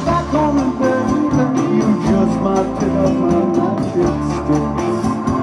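Live rock band playing, with organ and electric guitar over percussion.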